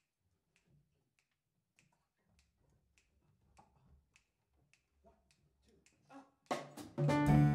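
Finger snaps counting off a medium swing tempo, about one every 0.6 seconds. About six and a half seconds in, the jazz quartet of alto saxophone, piano, double bass and drums comes in together, much louder.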